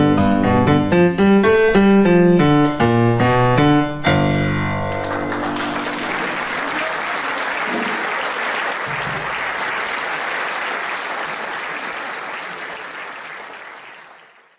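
Boogie-woogie big band with piano finishes the tune on a final chord about four seconds in. Audience applause follows and fades out near the end.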